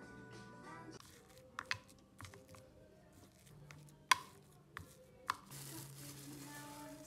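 A silicone spatula scraping mashed potato out of a plastic food-chopper bowl, with several sharp clicks as it knocks against the bowl and blade shaft, the loudest about four seconds in. Soft background music plays under it.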